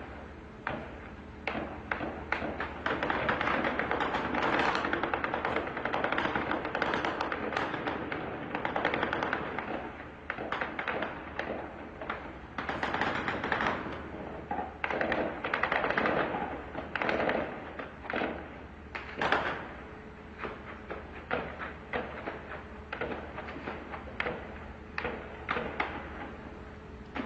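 Gunfire in an armed clash: several seconds of near-continuous automatic fire, then separate shots and short bursts a second or so apart.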